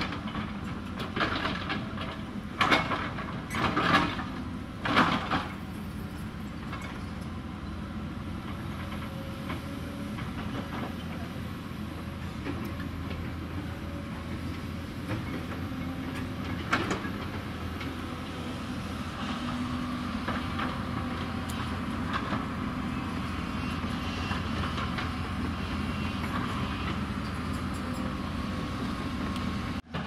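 Hyundai 220 excavator's diesel engine running steadily under hydraulic digging load, with several loud clanks of the bucket working soil and rock in the first five seconds and one more clank about seventeen seconds in.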